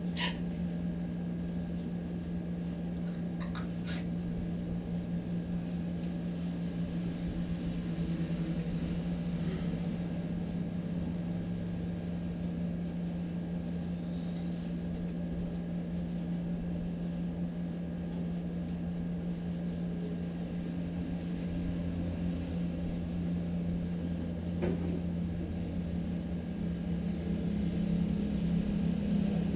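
Window air conditioner running with a steady low hum. A few faint clicks come through, near the start, about four seconds in and again near the end.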